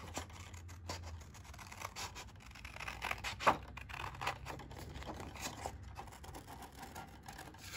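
Scissors cutting a circle out of card: a run of irregular snips and scrapes, with one sharper click about three and a half seconds in.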